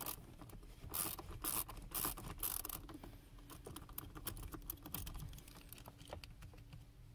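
Small finger ratchet with a 7/32 socket clicking as it backs out a blower motor mounting bolt up under a car's dash, with a few scraping rubs in the first few seconds and a run of quick, light clicks after that.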